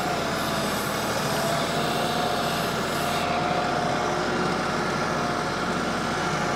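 Kioti compact tractor's diesel engine running steadily as the tractor drives slowly with a load in its front grapple.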